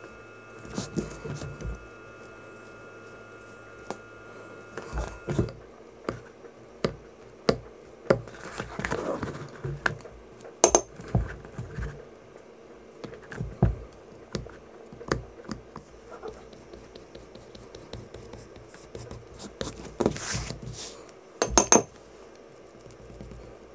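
Leather-working hand tools and leather handled on a workbench: irregular clicks, taps and short scrapes, with a few sharper knocks.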